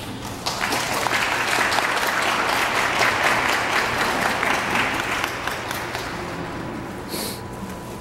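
Audience applauding at the end of a figure skating program, starting about half a second in and fading away after about five seconds.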